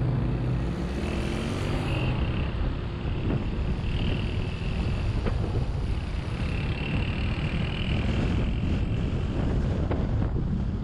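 Car driving on a city road: steady low tyre and road rumble with wind noise, and an engine note that fades out about a second in.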